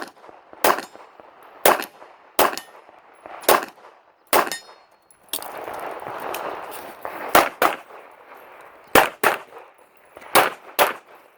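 Handgun shots fired in a match stage: about six shots at roughly one-second spacing, a gap of about three seconds, then about six more in quick pairs.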